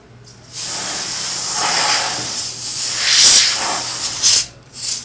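Canned compressed air spraying into an open desktop PC case to blow out dust, a loud continuous hiss. It starts about half a second in and swells and fades as the nozzle moves. It stops briefly near the end, then a second blast starts.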